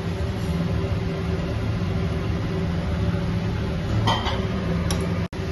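A steady low machine hum with a hiss over it, as a karahi of spiced cauliflower fries on a kitchen stove and green peas are tipped in. Two brief scraping strokes come about four and five seconds in, and the sound cuts out for an instant just before the end.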